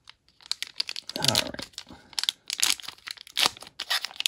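Foil booster pack crinkling and being torn open by hand: a run of sharp, irregular crackles.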